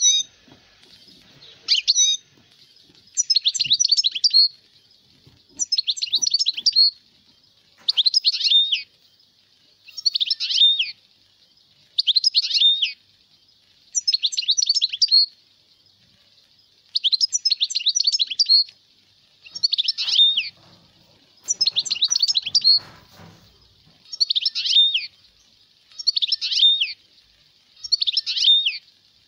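European goldfinch song: a bright twittering phrase of rapid high notes, about a second long, repeated roughly every two seconds.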